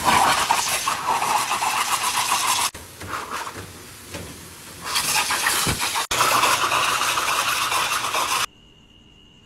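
Pet grooming blow dryer blowing air at a wet boxer dog, loud and rushing, dropping lower twice (about 3 s in for two seconds, and briefly near 6 s) as the air is moved about, then cut off abruptly near the end.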